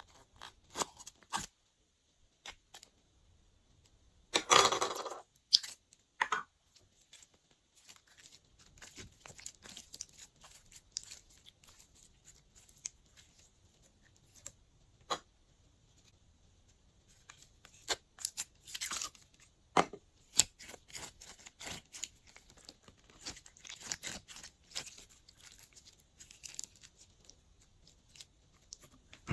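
Glossy slime being worked by hand: a string of short sticky clicks and crackles, with one louder, longer tearing stretch about five seconds in.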